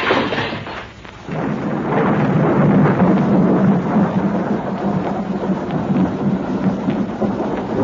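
Thunder sound effect: a loud crack dying away in the first second, then a long rolling rumble that starts about a second in and carries on steadily.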